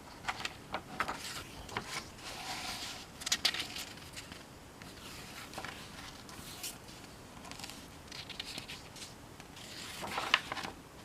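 Irregular rustling, scraping and small clicks of a picture book being handled, as if it is being opened and its pages turned.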